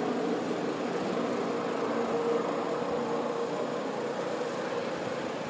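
NASCAR race trucks' V8 engines heard at a distance around the circuit: a steady engine drone that slowly fades as the trucks move away.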